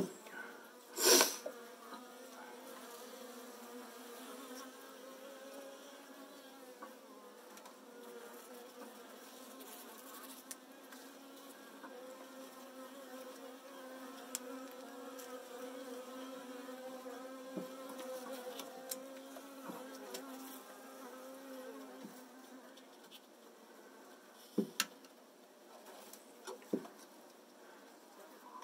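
Swarm of Saskatraz honeybees buzzing around an open hive, a steady low hum. A sharp knock sounds about a second in, and a few lighter taps come near the end.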